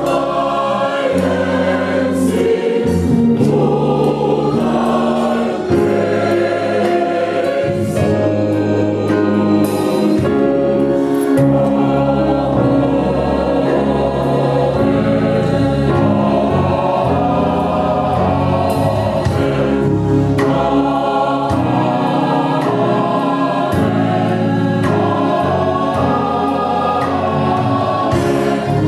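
Gospel choir singing full-voiced with a live band: saxophone, drum kit and guitar.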